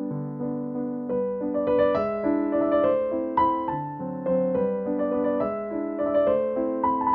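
Background piano music: a steady stream of gentle notes over held chords.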